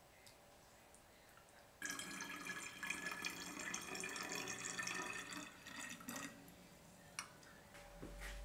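Syrup pouring in a thin stream into a glass bottle, a trickling splash with a ringing fill tone that starts about two seconds in and stops about six seconds in.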